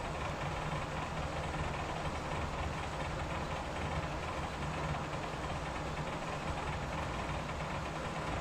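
Steady hum and fan-like noise from the Tormach 15L Slant-Pro CNC lathe standing idle, with a constant low hum underneath and no cutting sounds.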